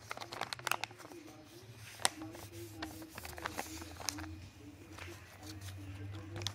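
A sheet of paper being handled, crinkling and rustling in a string of sharp clicks, over a low steady hum.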